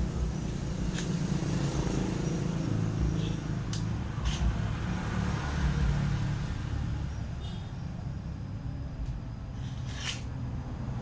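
A steady low rumble, like a running motor or engine, with a few short sharp knocks and clicks on top.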